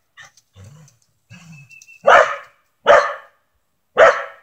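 Corgi barking at a squirrel up a tree: three loud barks, the first about two seconds in, the others about a second apart.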